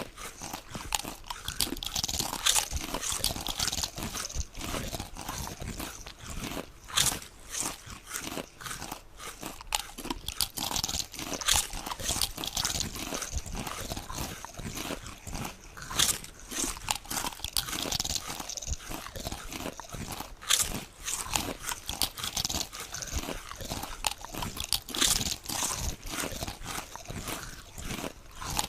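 Potato chips being bitten and chewed: a loud crisp crunch every four to five seconds, with steady crackly chewing between.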